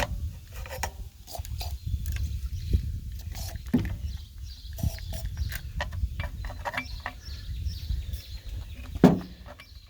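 Scattered small clicks and knocks of hands handling a chainsaw and its parts, with a sharper knock about nine seconds in, over a steady low rumble.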